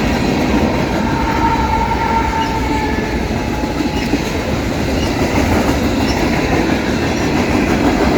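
Freight cars of a long mixed freight train rolling past, a steady rumble of steel wheels on rail. A faint wheel squeal sounds about one to three seconds in.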